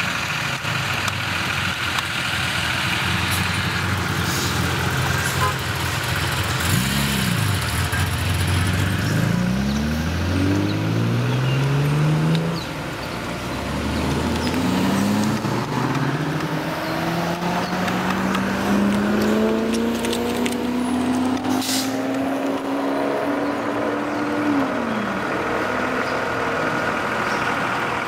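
Sports car engines, a 2011 Maserati GranCabrio's V8 among them, driving past and accelerating away through the gears. The engine note climbs and falls back at each shift, with one long climb in the second half.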